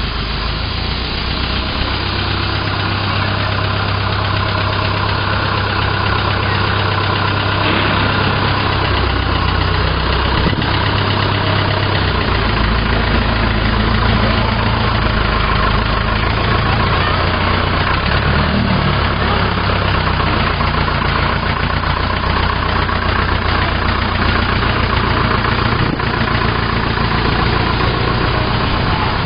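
Old JCB backhoe digger's engine running steadily, its low hum growing stronger about twelve seconds in.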